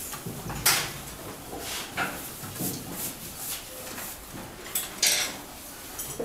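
Classroom clatter: scattered knocks and scrapes of desks and chairs, with two sharper knocks about a second in and about five seconds in.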